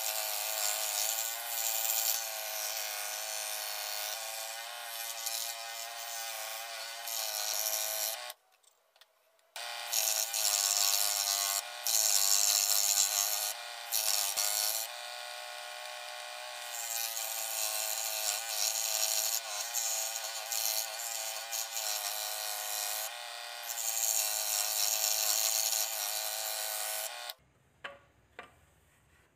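Electric scroll saw running, its fine blade cutting through thin plywood with a steady buzzing whine that wavers a little as the wood is fed. It stops abruptly about eight seconds in, starts again a second or so later, and stops once more near the end.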